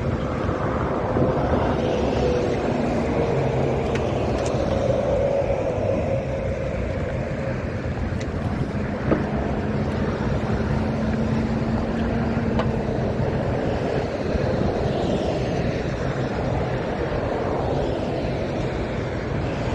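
Pickup truck driving steadily along a dirt track, its engine and tyres running under wind rushing over the microphone, with a single knock about nine seconds in.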